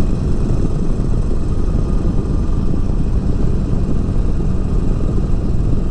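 Harley-Davidson Forty-Eight's 1200 cc V-twin running steadily while riding, mixed with steady wind rush.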